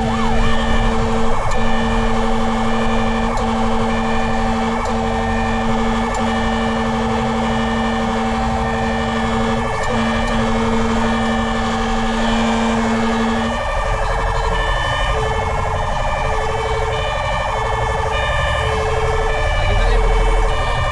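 Fire truck siren and horn sounding en route to a call: long steady tones broken by short gaps, with a low rumble underneath. About two-thirds of the way through, the long low blasts stop and a higher tone pulses on and off about once a second.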